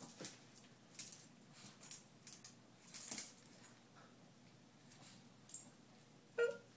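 Small dogs moving about on a hard floor: scattered light clicks and jingles, with one short high-pitched squeak near the end.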